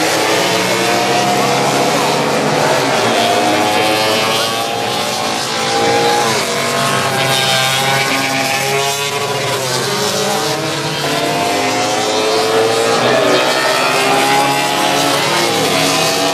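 Several classic motorcycles racing past on a circuit, their engines overlapping and rising and falling in pitch as they accelerate and go by.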